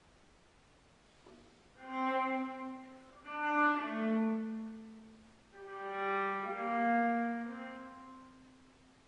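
Solo viola bowed in three slow, sustained phrases that each swell and fade, some with two notes sounding together. The first phrase enters about two seconds in, after a hush.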